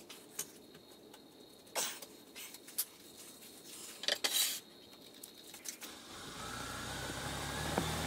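A few light knocks and clinks as a hackberry bowl blank is handled and rotated by hand on a wood lathe. Then the lathe's motor starts and spins the blank up: a low hum with a faint rising whine that grows louder over the last two seconds.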